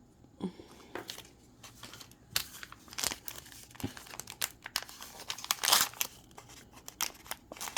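Thin plastic wrapping from a Mini Brands capsule being crinkled and torn open by hand: irregular crackling, busiest and loudest a little past halfway.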